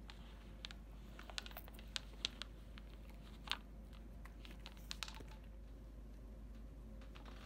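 A cat eating treats off a fleece mat: faint, scattered crisp crunches and clicks, irregular and spread over a few seconds.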